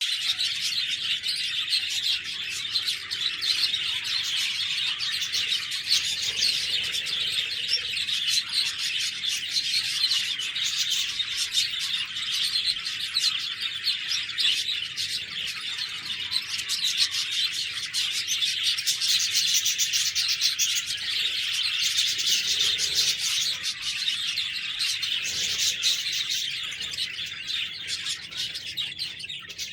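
A flock of budgerigars chirping and chattering continuously, many short calls overlapping into a steady twittering.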